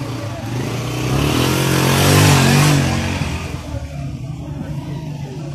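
A motor vehicle passing close by: its engine note and road rush swell to a peak about two seconds in, then fade back to a steady, lower engine sound.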